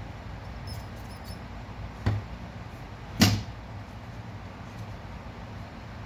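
Two sharp knocks about a second apart, the second louder, over a low steady hum.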